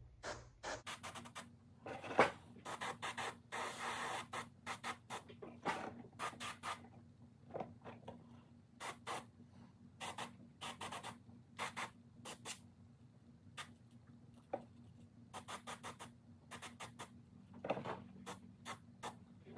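Airbrush spraying paint onto a lure blank in many short, irregular hissing bursts as the trigger is pressed and released, over a low steady hum.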